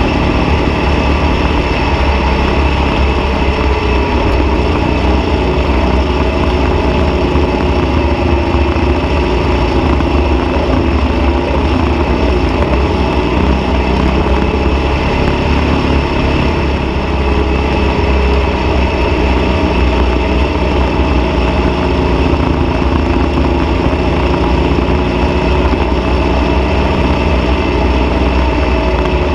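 Dune buggy engine running loud and steady as the buggy drives across sand, heard from close up on its roll bar.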